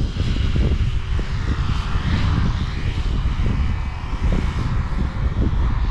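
Yu Xiang F11 Apache RC helicopter's rotor blades spinning steadily with a steady motor tone, one blade making extra noise because it is cracked.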